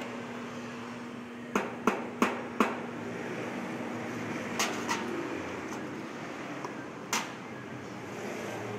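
Espresso machine running with a steady hum that stops about five seconds in, under a noisy background. There is a quick run of four sharp knocks about a second and a half in, then a few more single clicks.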